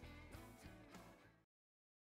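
Background music fading out, then cutting to silence about one and a half seconds in.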